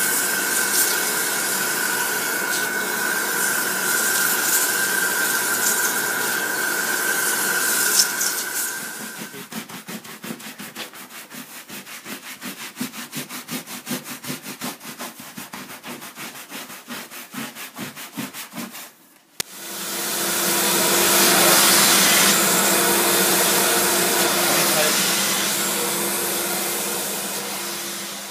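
Upholstery-cleaning extraction machine running with a steady whine and suction noise. After about nine seconds it gives way to quick, even scrubbing strokes on a foamy fabric cushion, about four a second. About two thirds of the way in it resumes, louder, with a low hum.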